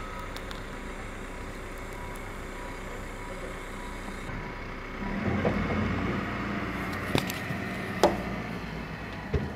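Snow plow vehicle's engine running steadily, growing louder about halfway through as it works. Three sharp knocks or clanks come in the last few seconds.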